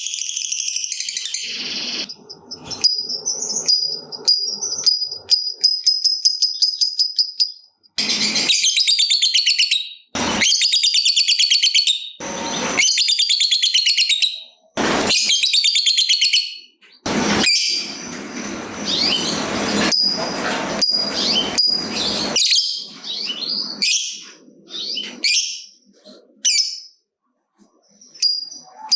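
Lovebird giving long, rapid chattering trills, the drawn-out call fanciers call "ngekek panjang", with a thin steady high note between them. The trills come in several stretches that cut off abruptly.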